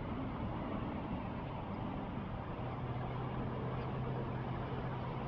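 Steady drone of distant road traffic, with a low engine hum growing stronger about two and a half seconds in.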